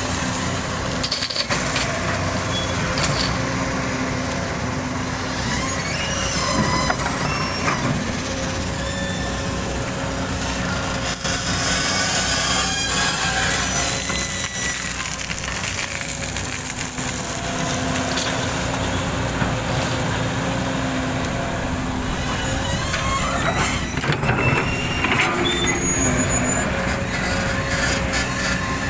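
JCB tracked excavator's diesel engine running steadily while its bucket digs into and scrapes through sand and gravel, with scattered knocks and scrapes of stones against the steel bucket.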